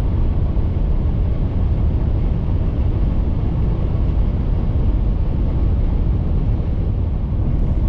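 Car cruising at freeway speed, heard from inside the cabin as a steady, deep road rumble.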